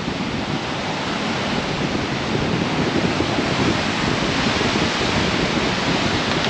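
Steady, loud sizzling hiss of food frying over high heat, just after it has gone into the pan.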